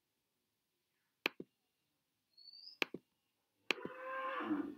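Quiet clicks from a computer pointer as items are selected and placed on screen: a close pair about a second in, another pair near three seconds, and one more click just before a brief muffled sound near the end.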